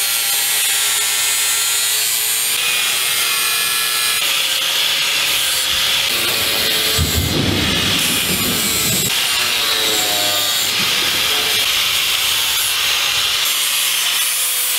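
Angle grinder with an abrasive disc grinding down a wooden axe handle to shape it. The motor's pitch wavers up and down as the disc is pressed into the wood.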